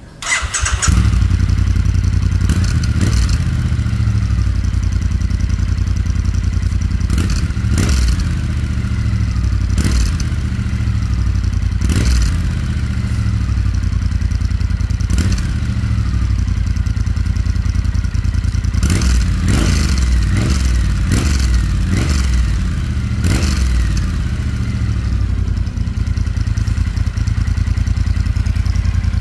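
Triumph Speed Twin 900's parallel-twin engine starting up just after the start and then running through slip-on stainless steel silencers, idling with a number of short revs.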